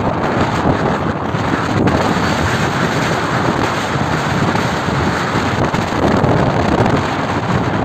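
Strong northeast monsoon (amihan) wind buffeting the microphone steadily, over choppy sea water.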